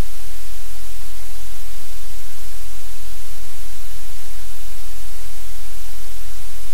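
Loud, steady static hiss with a low hum beneath it, unchanging throughout; no other sound stands out above it.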